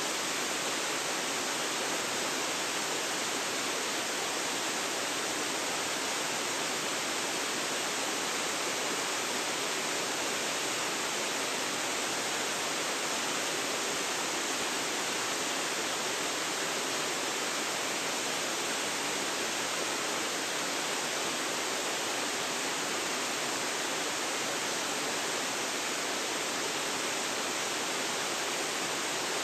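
Waterfall rushing steadily, an even hiss-like roar of falling water with little deep rumble, picked up by a phone's built-in microphone.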